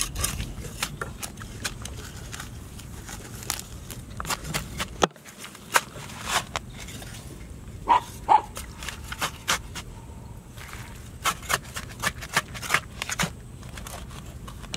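Small hand hoe chopping into and scraping wet clay soil, a run of irregular short knocks and scrapes.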